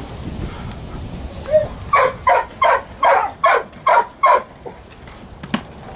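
A dog barking: a quick run of about seven sharp barks, about three a second, starting about two seconds in.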